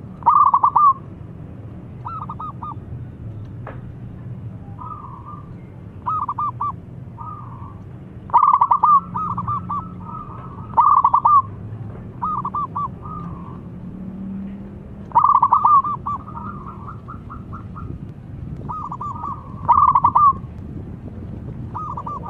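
Local zebra dove (perkutut) singing: short phrases of quick, staccato cooing notes, repeated every couple of seconds, some phrases longer runs of notes.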